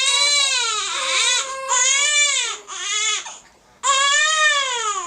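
Four-week-old baby crying hard: a run of high-pitched wails, each rising and falling in pitch, with a short break about three and a half seconds in. It is a really uncomfortable cry from an infant with reflux.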